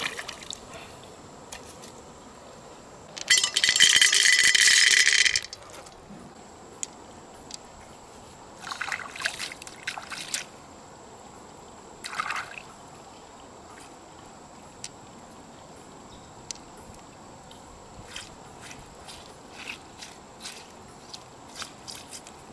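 Loose freshwater pearls rattling for about two seconds, beginning about three seconds in. After that come short scrapes and a scatter of light clicks as fingers pick through mud and mussel shells.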